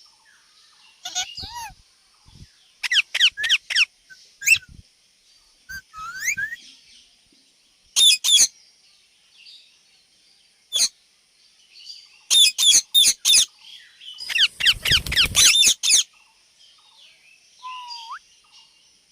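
Indian ringneck parakeet calling: clusters of short, shrill chirps and screeches, several in quick succession each time, separated by brief pauses, with a single short rising whistle near the end.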